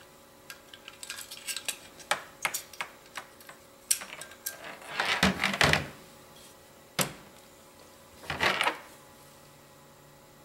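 Small metal parts and tools clicking and clinking as an airsoft gearbox is handled and opened on a workbench, with two longer, louder rattles about five and eight seconds in.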